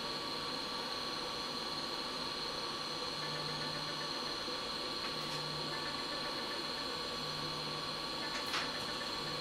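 Steady electrical hum and hiss from bench equipment, with a low hum that comes and goes every second or two. A single faint click about eight and a half seconds in.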